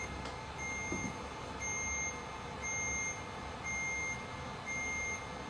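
Companion animal therapy laser beeping steadily, one long beep about every second, the tone that signals the laser is emitting light.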